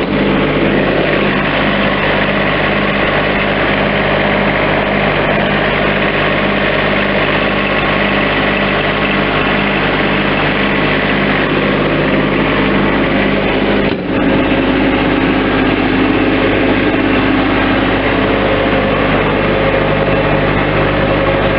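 Diesel engine of a 2016 Bobcat MT-85 stand-on skid steer running steadily, with a brief dip in sound about two-thirds of the way in.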